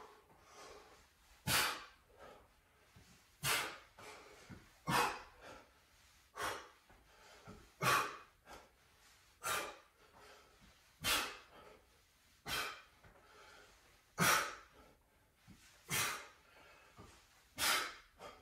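A person breathing hard through exercise reps, with a sharp, forceful exhale about every one and a half seconds, eleven times.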